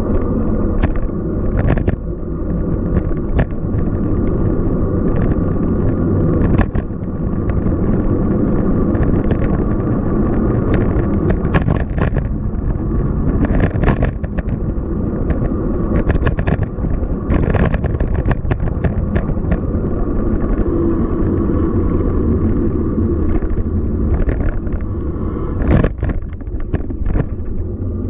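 Downtown city street noise: a loud, steady low rumble with many short clicks and knocks scattered through it.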